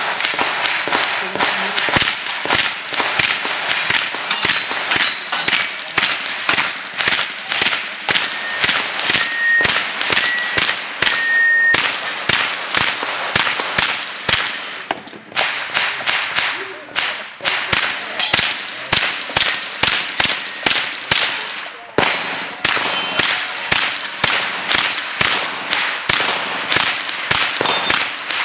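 Rapid semi-automatic .22 rimfire rifle fire from a SIG Sauer 522, about two shots a second, with the sharp ring and clang of steel plate targets being hit. The firing breaks briefly about 15 and 22 seconds in before carrying on.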